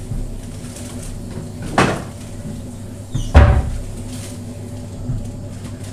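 Two sharp knocks, like a cupboard or door being shut, about a second and a half apart, the second louder and heavier, over a steady low hum.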